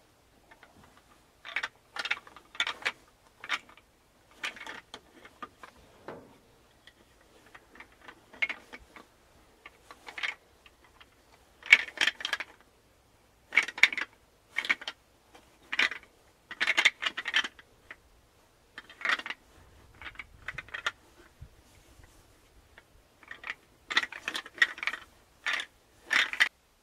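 Handheld deer rattling call worked in short bursts of hard plastic clicking and clattering, several clicks to a burst with pauses between, to imitate bucks sparring.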